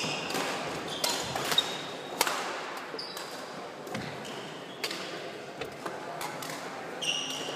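Badminton play: rackets striking a shuttlecock with sharp pops several times, mixed with short squeaks of shoes on the wooden court floor.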